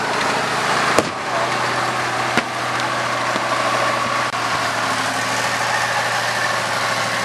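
Armoured vehicle's engine running steadily, heard up close, with a couple of sharp cracks about one and two and a half seconds in.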